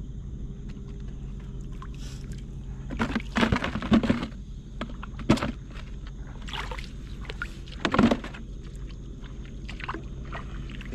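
Shallow seawater splashing and sloshing as hands grab among seagrass, in a few loud bursts about three to four seconds in, around five seconds, and again near eight seconds, over a steady low hum.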